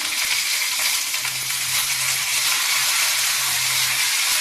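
Curry leaves sizzling and spluttering in hot oil in a tempering pan, the sizzle jumping up sharply as they go in.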